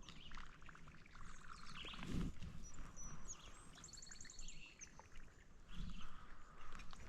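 Outdoor lakeside ambience: a songbird gives a short, rapid trill of repeated high notes about four seconds in, over light rustling and handling noise, with a dull low thump about two seconds in.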